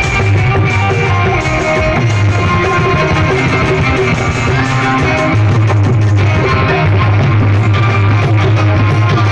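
Live bhajan music played loud over a PA system: sustained instrumental tones over a heavy, steady bass.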